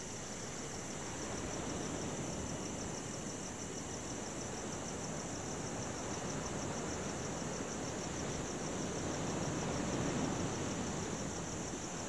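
Crickets chirping in a fast, steady pulsing trill over the continuous wash of ocean waves, the surf swelling a little about ten seconds in.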